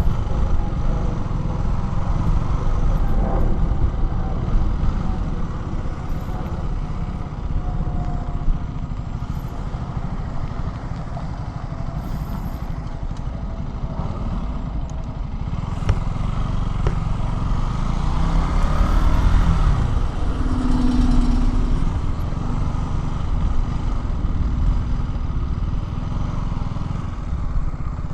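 KTM Duke 200's single-cylinder four-stroke engine running while the bike is ridden, over a steady heavy low rumble. The engine note rises and falls about two-thirds of the way in, and there are a couple of brief sharp clicks.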